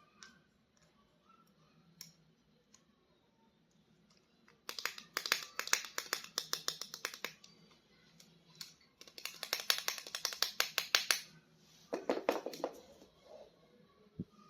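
Toy packaging being handled during an unboxing: two bursts of quick, crackly clicking and rustling, each a couple of seconds long, with a shorter one near the end.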